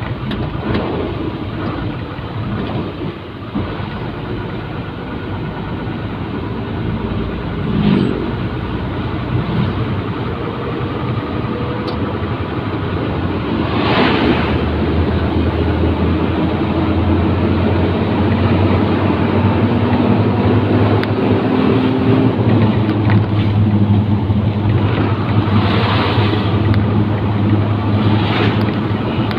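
Truck engine and road noise heard from inside the cab while driving, the engine hum growing louder about halfway through. Two brief rushes of sound as oncoming vehicles pass, one about halfway and one near the end.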